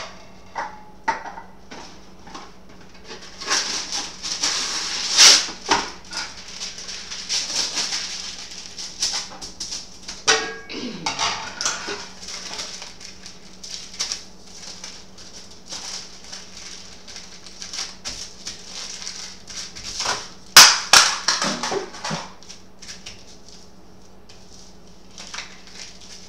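A sheet of wax paper being handled, folded and creased, crinkling in irregular bursts, with the loudest crackles about five seconds in and again about twenty seconds in.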